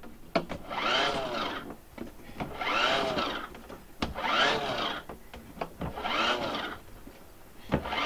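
MaxxAir MaxxFan 4500K roof vent lid being cranked open by hand with its manual knob: four turns, each a whirring scrape that rises and falls in pitch, with light clicks between.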